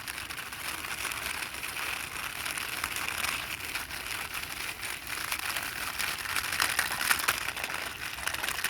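Toy jeep's small wheels rolling along a surface as it is pushed by hand, a steady rasp with fine rapid clicking.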